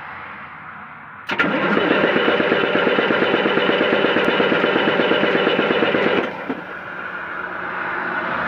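MAN TGA truck diesel engine cranked on its starter motor for about five seconds, with even rhythmic pulses, then stopping without the engine firing. This is the crank-no-start fault, with the EDC engine computer flagging an immobilizer code because it is not matched to the truck.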